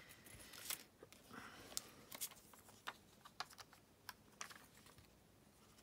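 Faint clicks and short rustles of paper being handled: a die-cut paper leaf sprig being placed on a card and a sheet of glue dots being handled.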